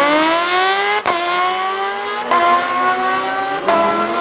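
Sport motorcycle engine at full throttle in a drag race, its pitch climbing steadily and dropping sharply at each of three quick upshifts.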